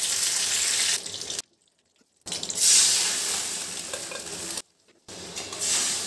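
Curry leaves and mustard seeds sizzling in hot mustard oil in a steel kadai, then boiled toor dal going in and being stirred with a spatula, the sizzle surging as it hits the oil. The sound cuts out abruptly twice, each time for under a second.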